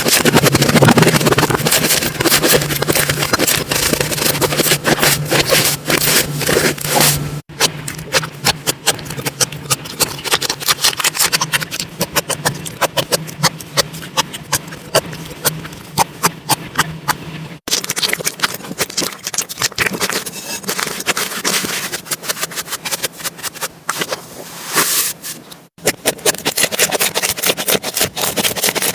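Slime being squished and kneaded by hand, giving dense, rapid clicking and crackling pops. The sound breaks off abruptly three times as one clip cuts to the next.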